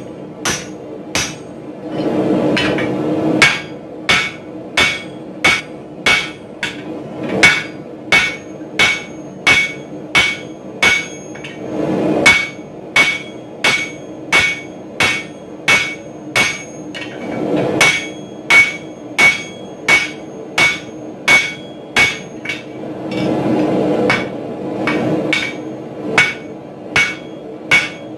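Steady hand-hammer blows, a little more than one a second, striking a handled punch driven into a red-hot 4140 steel axe blank on a swage block. Each blow gives a sharp metallic clang with a brief ring. A low rushing noise rises and fades a few times between the blows.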